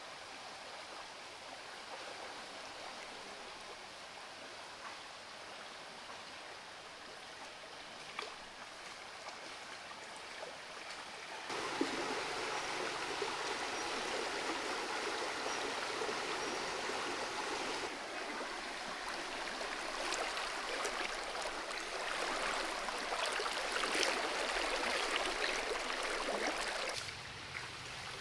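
Shallow stream running over rocks, a steady rushing of water that grows louder and fuller about 11 seconds in and drops back shortly before the end. In the louder stretch there are some short splashes from hands rinsing a rack of pork ribs in the current.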